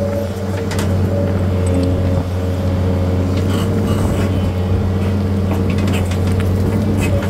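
Engine of machinery levelling stone, running steadily with a constant low hum, with scattered light knocks and clatters.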